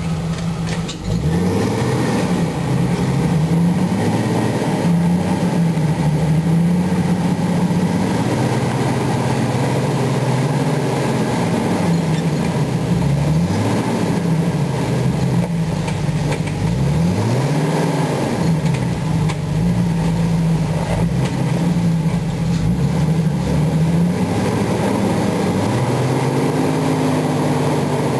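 Jeep Wrangler Rubicon's engine running at low speed as it crawls over rocks and ruts, the revs rising and falling again and again under the throttle, with the biggest swells about halfway through and a few seconds later.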